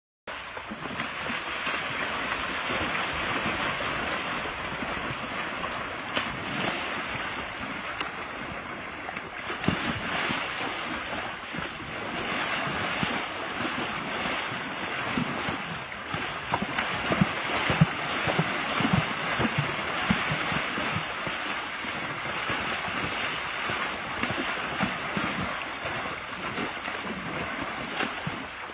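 Steady rush of water with wind buffeting the microphone, broken by short irregular splashes, most frequent in the middle.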